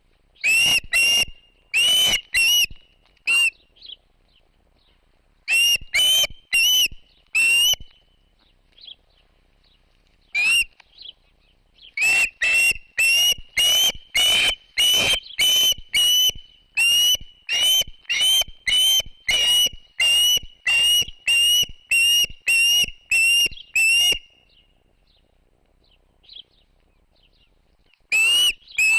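A bird calling close by: short, clear whistled notes, each rising quickly and then holding, repeated in runs at about two a second. The longest run goes on for about twelve seconds, and there are pauses between the runs.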